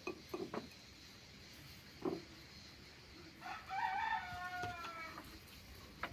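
A rooster crowing once, a drawn-out call of nearly two seconds, a little over three seconds in. It comes after a few short snaps and knocks in the first two seconds.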